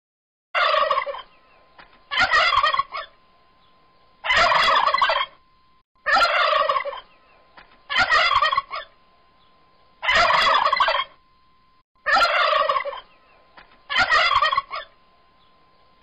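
Turkey tom gobbling, eight rattling gobbles of about a second each, spaced roughly two seconds apart.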